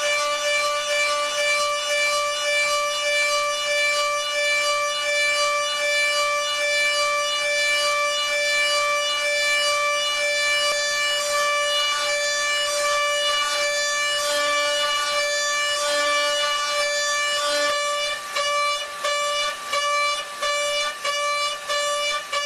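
CNC milling machine cutting with a steady, high-pitched whine. About eighteen seconds in, the whine breaks into short repeated bursts, roughly two a second.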